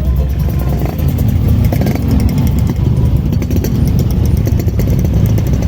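Street parade noise dominated by heavy, loud bass from a truck-mounted 'sound horeg' sound system, mixed with vehicle engines running.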